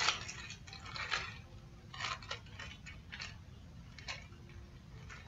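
Light handling noise: a handful of faint, irregular clicks and rustles, about one a second, as something small is handled.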